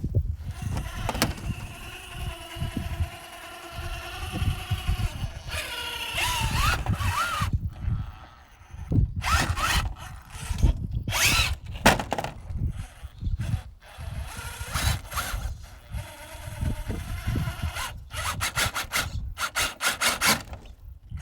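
Electric drive motor and geartrain of a 1/7-scale RC trail truck whining, the pitch gliding up and down with the throttle. Scrapes and clicks are mixed in, with a quick run of clicks near the end.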